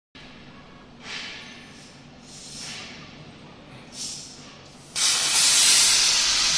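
CNC plasma cutting torch: three short soft hisses, then about five seconds in the arc strikes and cuts 10 mm stainless steel with a sudden, loud, steady hiss.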